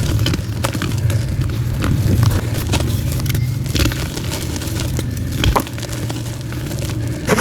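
Soft blocks of white gym chalk being crushed by hand and crumbling into powder, with irregular crisp crackles and a few louder snaps over a low rumble.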